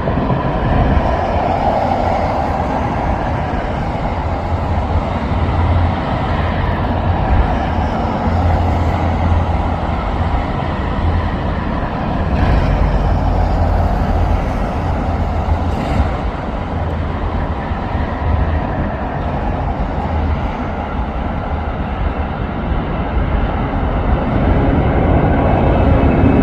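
Jet airliner engines at takeoff power: a loud, steady rumble with a heavy deep low end and a rushing roar above it.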